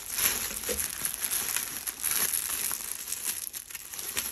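Plastic packaging crinkling and rustling in irregular bursts as it is handled and pulled at.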